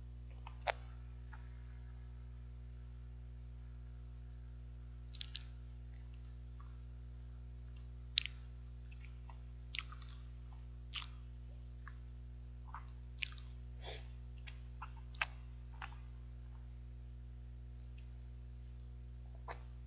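Mouth sounds of eating a soft strawberry mochi ice cream bar: about a dozen short, wet smacks and clicks of the lips and tongue, spaced irregularly, over a steady low electrical hum.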